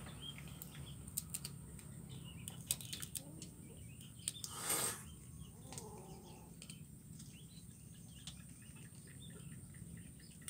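Faint birds chirping in the background, with scattered small clicks and a short burst of hissing noise about halfway through.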